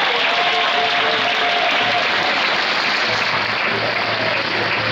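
Arena crowd applauding after a rally in a badminton match, a steady clapping that runs through without a break.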